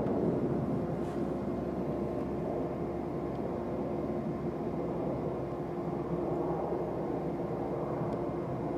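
Jet aircraft engine running: a steady, rumbling noise, with a steady hum joining in about a second in.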